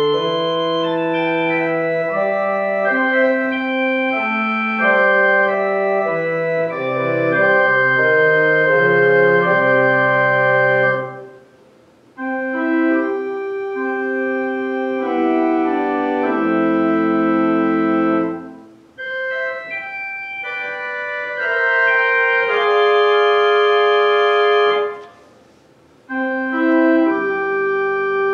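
Organ playing slow, held chords in phrases, pausing briefly three times between them.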